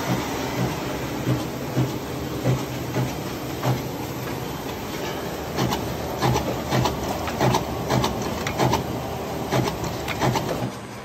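Aerocut X cutter/slitter/creaser running through a sheet-fed cutting job, slitting printed sheets into 3x3 postcards: a steady machine hum with repeated clacks roughly twice a second. It winds down just before the end.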